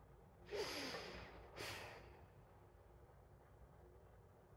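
A woman's audible breaths, close to the microphone: a sigh-like breath lasting under a second about half a second in, then a shorter, sharper breath; otherwise near silence.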